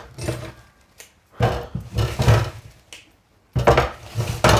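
Plastic shopping bag rustling and cassava roots being handled and set down on a kitchen worktop: a run of irregular rustles and soft knocks with short pauses between them.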